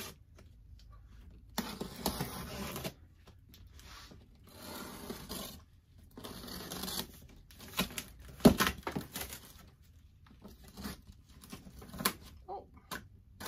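A cardboard box being cut and torn open: several scratchy stretches of packing tape being slit and ripped, then a few sharp knocks and rustles from the flaps and packing paper, the loudest knock a little past the middle.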